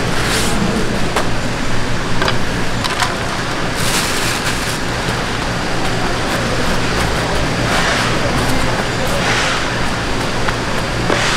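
A plastic sheet crinkling in short rustles as hands spread shredded radish garnish across a plastic-lined platter, over a steady low hum and background chatter.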